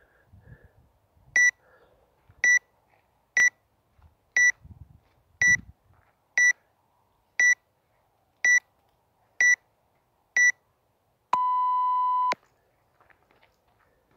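Workout timer counting down: ten short high beeps about one a second, then one longer, lower beep about a second long that signals the start.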